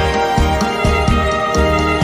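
Background music: sustained notes over a steady pulsing beat.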